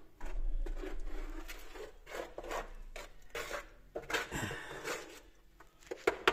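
Short, irregular scraping and rubbing sounds, with a few sharp clicks near the end.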